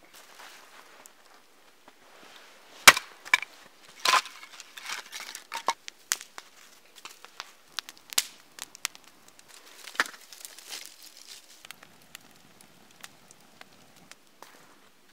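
A series of sharp cracks and knocks, the loudest about three seconds in and another about a second later, then scattered lighter clicks and cracks; near the end a soft, low crunching.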